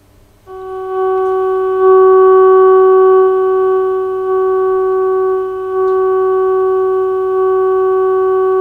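Steady test tone with overtones from a Healing 503E valve radio's speaker: the signal generator's modulated signal coming through as the set is tuned onto it during dial alignment. It comes in about half a second in and swells a little louder as it is peaked, with small dips along the way.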